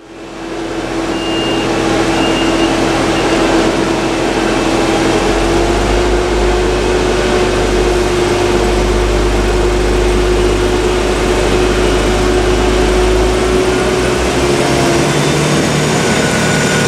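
Diesel engine of an Arriva SA133 single-car railbus running under power, a steady drone that steps up with a heavier low rumble about five seconds in as the railcar moves along the platform. A faint high whine joins near the end.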